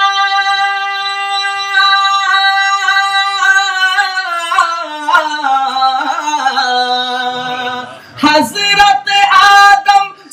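A man singing a naat unaccompanied, holding one long high note and then stepping down through a slow, ornamented run. About eight seconds in the note breaks off and he starts a new, choppier phrase.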